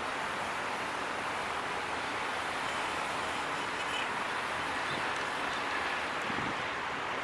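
Passenger train running past on the rails: a steady rushing rolling noise that holds even throughout.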